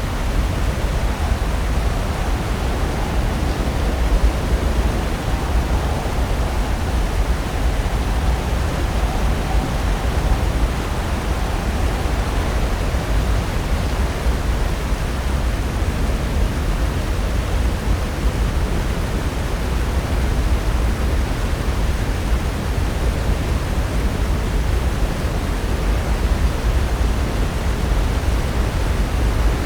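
Pacific Ocean surf breaking continuously, heard as a steady, deep rush of noise with no separate wave crashes standing out.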